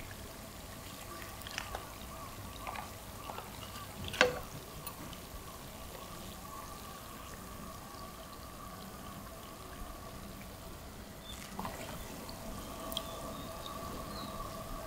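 Breaded corn dogs deep-frying in a pan of oil: a steady, quiet sizzle and bubbling. Metal tongs give a few sharp clicks, the loudest about four seconds in.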